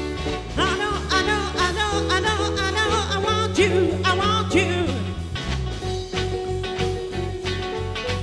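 Upbeat dance music from a live band, with a steady beat and a singer whose voice wavers with vibrato; the singing stops about five seconds in while the band plays on.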